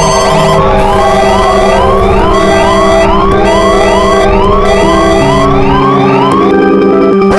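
Several Asian countries' emergency alert alarm tones sounding together as one loud, dense mix: a rising sweep repeats about two or three times a second over overlapping steady tones and beeps at several pitches. The sweeps stop shortly before the end.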